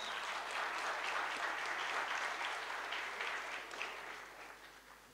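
Audience applauding, a dense spread of many hands clapping that holds steady and then dies away over the last second or two.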